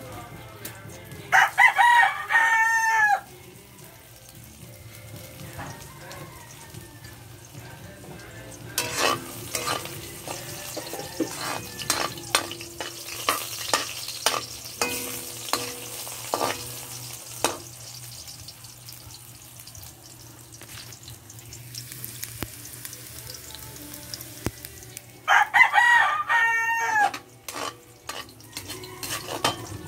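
A rooster crows twice, each crow about two seconds long, once just after the start and again near the end; these are the loudest sounds. In between, a metal spatula scrapes and clinks against an aluminium wok over a light sizzle of frying food.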